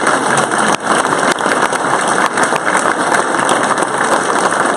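Audience applauding loudly, a dense steady patter of many hands clapping.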